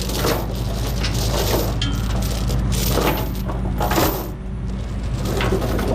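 Steel tie-down chain rattling and clinking as it is fed through the machine and pulled, in repeated bursts about once a second, over a steady low hum.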